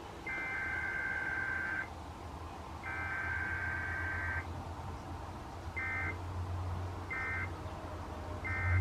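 Emergency Alert System SAME data bursts: harsh two-tone digital chirping, two long header bursts a second apart, then three short end-of-message bursts. A steady low hum runs under them.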